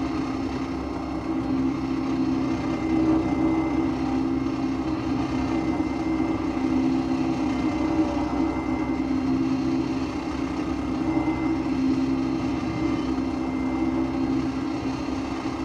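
Off-road vehicle's engine idling steadily while the vehicle stands still.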